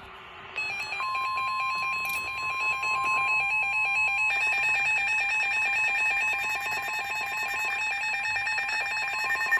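Emergency Alert System alert tones announcing a severe thunderstorm warning: a loud electronic tone rapidly warbling between two notes, joined from about a second in by a steady beep tone that gives way at about four seconds to a different, higher steady tone.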